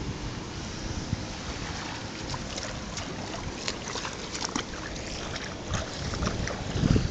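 Wind buffeting the microphone over open water, with a run of short sharp ticks and splashes in the middle and a low thump near the end.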